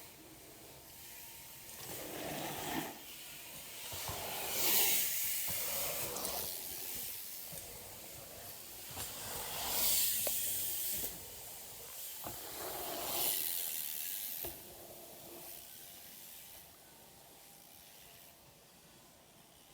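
BMX bikes rolling over packed dirt, their tyres hissing as several riders pass one after another in a train. Each pass swells and fades within a second or two.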